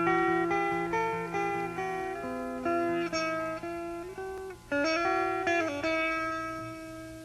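Music: a plucked-string instrument picks out a single-note melody, each note ringing and fading, with no drums yet.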